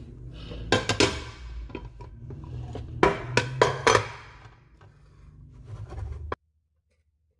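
Metal bundt pans and a plate being handled on a stone counter, clattering with several sharp metallic knocks, a pair about a second in and a cluster around three to four seconds in. The sound cuts off abruptly about six seconds in.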